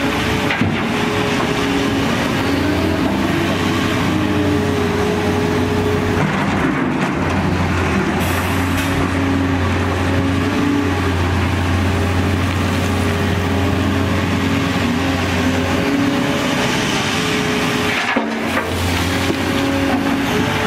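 Diesel engine and hydraulics of a Volvo crawler excavator working steadily through a dig-and-load cycle, with a Volvo articulated dump truck's engine running beside it. The engine note rises and falls slightly as the machine works.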